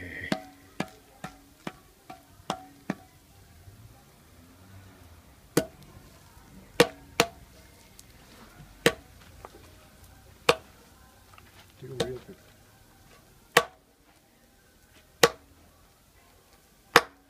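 Hand-spun potter's wheel turning on a wooden pivot, with sharp knocks: a quick, even run of about seven in the first three seconds, then about eight louder ones at irregular gaps while clay is worked at its centre.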